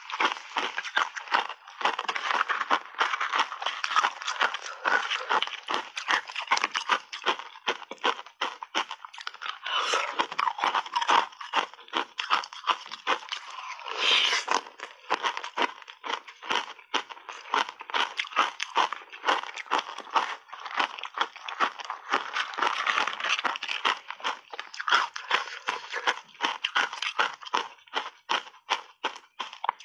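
Ice shaved and in cubes, coated in matcha powder, being chewed right up against a lapel microphone: a dense, rapid run of crunching and crackling that keeps going with only brief pauses.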